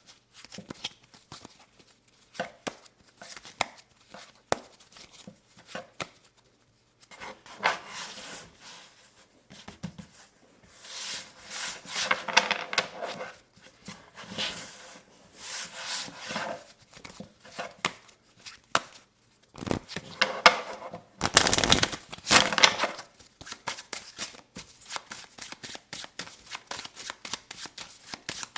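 Playing cards handled close to the microphone: sharp taps and flicks, with stretches of cards rubbing and sliding against each other. About three-quarters of the way in comes a louder shuffle, followed by a run of quick, even clicks.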